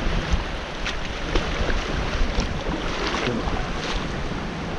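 Wind buffeting the microphone over small waves washing onto a muddy shore. Several short splashes break through it in the shallows.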